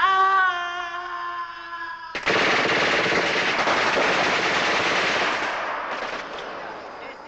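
A long held tone, sinking slightly, for about two seconds. Then a burst of machine-gun fire starts suddenly and runs for about four seconds, fading near the end.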